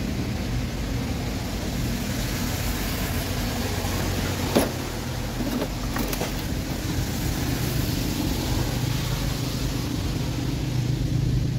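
Hard plastic parts of a children's ride-on toy car clicking and knocking as its steering wheel and bolt are worked into place by hand. There is one sharp click about four and a half seconds in and a few lighter ones about a second later, over a steady low hum.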